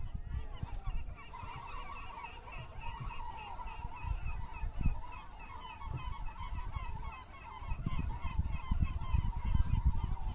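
A flock of gulls calling together, a steady chatter of many short overlapping cries starting about a second in, with wind gusting on the microphone.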